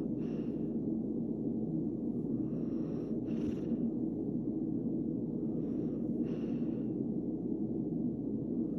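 A relaxed dog breathing slowly through its nose, one soft in-and-out breath about every three seconds, over a steady low hum.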